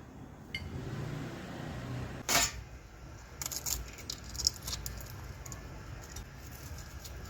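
Handling noises: a short rasping burst about two seconds in, then a run of small clicks and clatters over a low steady rumble.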